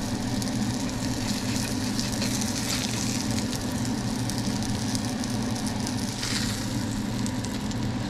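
Breaded flounder fillets sizzling and crackling in butter in a frying pan, a steady hiss dotted with fine pops. A continuous low hum runs underneath.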